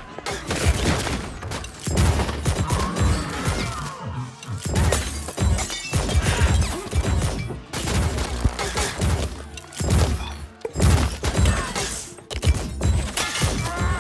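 Action-film fight soundtrack: music with a strong beat under a brawl's sound effects, with repeated thuds and impacts, crashes and shattering.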